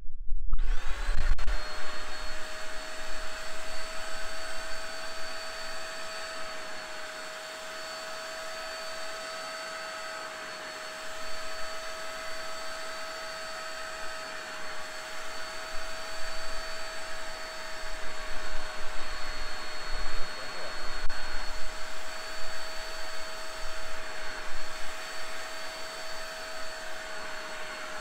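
Vax SpotWash Duo spot cleaner switched on, its motor spinning up within the first second and then running with a steady whine. Over it comes a rushing suction noise that swells and dips as the nozzle is worked over a wet carpet floor mat, drawing the dirty water out.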